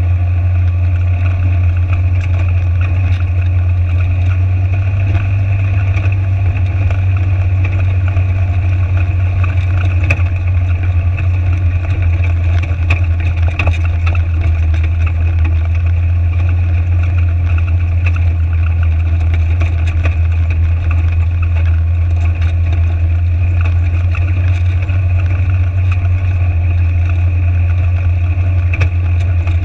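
Side-by-side UTV engine running steadily at a constant drone while driving over loose river rock, with faint scattered ticks of stones under the tyres.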